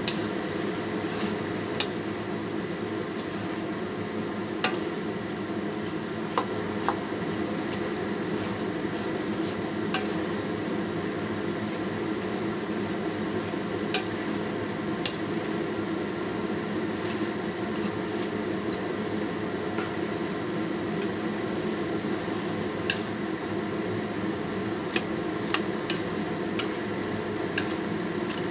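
A wooden spoon stirs and turns chopped cabbage, onion, tomato and oxtail in a non-stick pot. The spoon knocks sharply against the pot now and then, at irregular times, over a steady hum.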